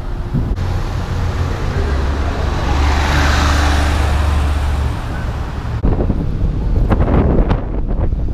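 A car driving past on the street, its tyre and engine noise swelling to a peak about three seconds in and then fading. After a sudden change about six seconds in, wind buffets the microphone in rumbling gusts.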